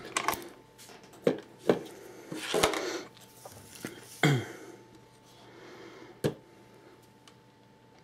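Handling noise from a small 4S LiPo battery pack and its leads and plastic connectors being picked up and set down on a digital kitchen scale's metal platform. It comes as a few separate light knocks and clicks with short rustles between them; the loudest is about four seconds in, and a sharp click follows about six seconds in.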